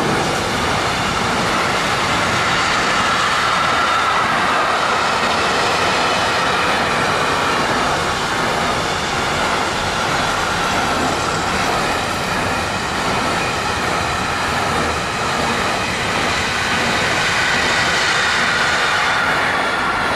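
Freight train of intermodal flat wagons loaded with tank containers rolling past at speed: a loud, steady rumble of wheels on rail with a faint steady whine in it, until the last wagon goes by at the end.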